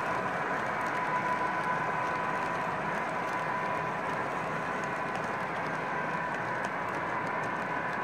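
O gauge model freight cars and caboose rolling past on the track: a steady rolling noise with faint, irregular clicking from the wheels over the rails, and a steady high tone underneath.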